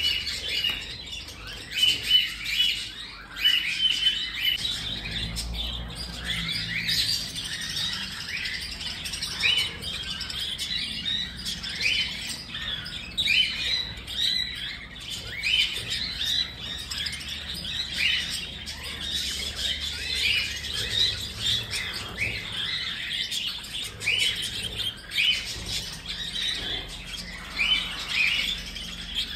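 Cockatiels chirping continuously, with many short calls overlapping in a busy, steady stream.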